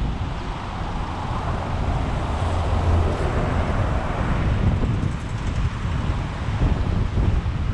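Wind rushing and buffeting over the microphone of a camera on a moving car, with low road and tyre rumble underneath. The rush swells for a couple of seconds around three seconds in, then settles.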